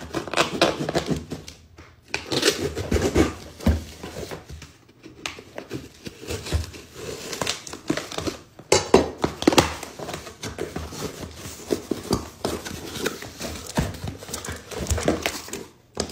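A cardboard shipping box being cut open with a knife and unpacked: the blade scrapes through the packing tape, and the tape and cardboard flaps rustle and crinkle in irregular bursts.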